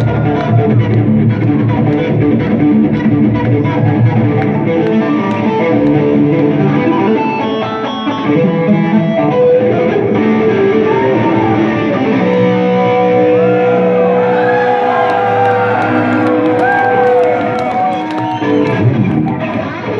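Double-neck electric guitar played solo through an amplifier. It opens with a dense run of quick notes, then past the halfway point turns to long held notes and bent notes that swoop up and down in pitch.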